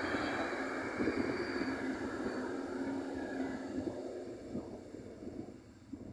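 Freight wagons rolling past on the rails, a steady rumble and clatter of wheels, fading away over the last two seconds or so as the trains move off.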